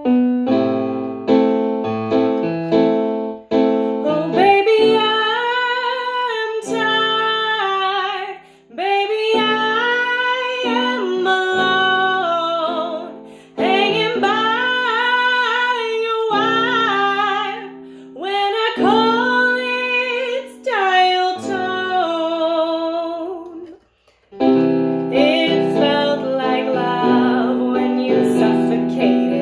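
A woman singing with piano accompaniment. The piano plays alone at first, the voice comes in about four seconds in with long, wavering held notes, and near the end a brief break gives way to the piano again.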